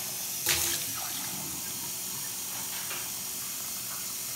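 Kitchen faucet running a steady stream of water into a glass container in the sink, with one brief knock about half a second in.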